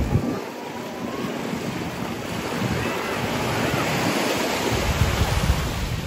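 Small sea waves breaking at the shoreline and washing up the sand, the wash swelling a couple of seconds in. Wind rumbles on the microphone near the end.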